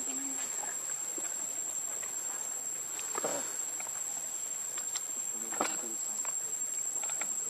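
Steady high-pitched insect drone, with a couple of brief, faint voices about three and five and a half seconds in.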